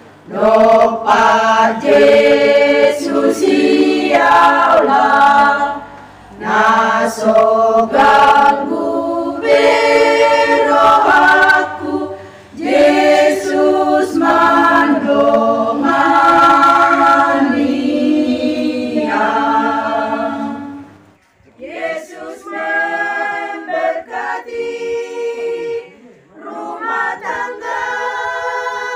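Women's choir singing a hymn a cappella. About 21 seconds in, the singing breaks off and another women's group comes in, quieter.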